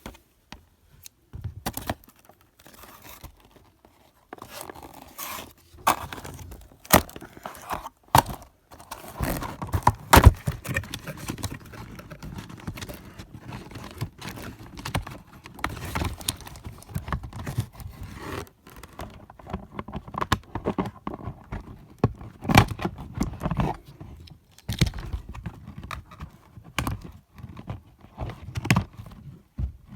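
Toy packaging being handled and opened: irregular tearing, scraping and crinkling of cardboard and plastic, with sharp clicks and knocks throughout.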